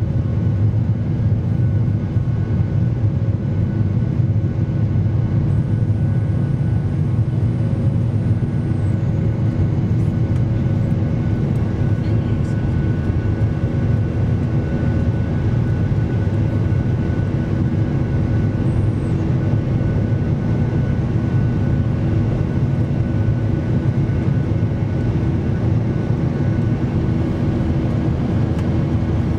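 Cabin noise of a Boeing 737-800 heard beside the wing, over its CFM56-7B turbofan engines. It is a steady deep rumble of engines and rushing air, with several steady engine tones humming above it.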